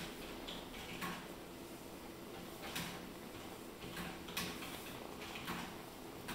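Scattered soft clicks and rustles, about one every second or so, from a kitten shifting on a lap while being stroked by hand, over a steady low hum.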